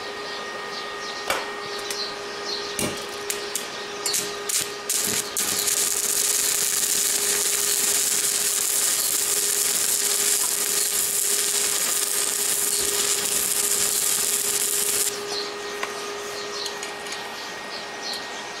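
Stick (MMA) welding arc from a small stick welder: a few stuttering crackles as the rod is struck, then the arc burns with a steady crackling hiss for about ten seconds and breaks off suddenly. The arc runs with little sputtering.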